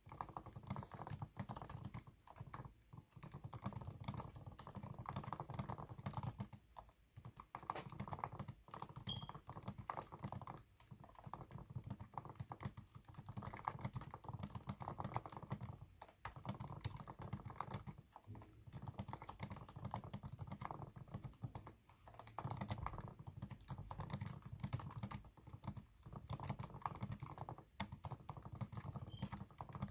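Fast typing on a computer keyboard: a dense, rapid run of keystrokes with a few brief pauses.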